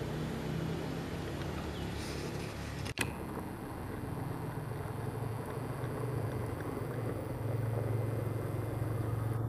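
Steady low hum of an engine running at a distance. Near three seconds in, the sound cuts out for an instant and ends in a click.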